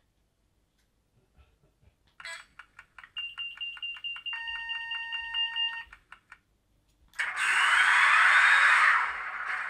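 Piko HO-scale BB 60000 diesel locomotive model's digital sound decoder playing the engine start-up through its small onboard speaker. First comes a rapid ticking at about five a second, with a steady high beep joining it for a few seconds. About seven seconds in, the diesel engine starts with a loud rush and a rising whine, then settles to a quieter steady running near the end.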